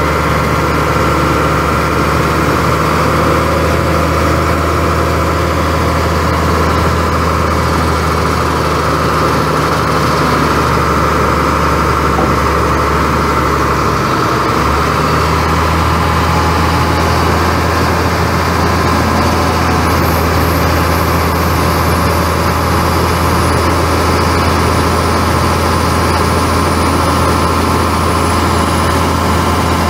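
Caterpillar 3116 six-cylinder turbo diesel of a 1994 GMC TopKick truck idling steadily.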